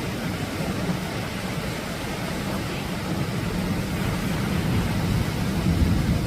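Atlantic surf breaking on the shore: a steady, deep roar of waves that swells a little toward the end.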